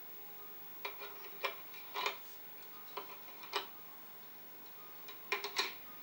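Irregular sharp metallic clicks, some single and some in quick clusters, as a hand works a small lock or key.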